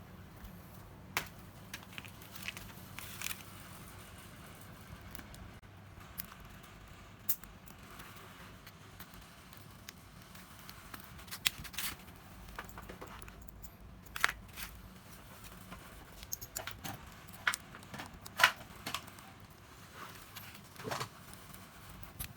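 Scattered light clicks and taps of small tool parts being handled, picked up and set down at uneven intervals, over a faint steady low hum.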